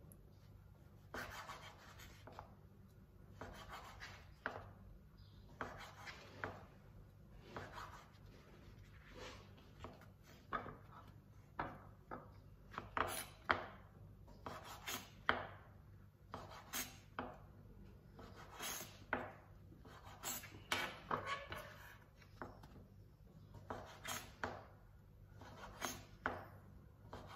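Chef's knife cutting the crusts off slices of white bread on a wooden cutting board: repeated short cutting and scraping strokes, quiet.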